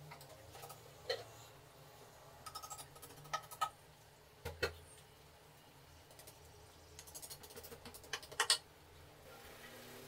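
Small hammer tapping small nails into a wooden cage frame to fasten the wire mesh. The taps are light and irregular, some single and some in quick runs, and the loudest strokes come near the end.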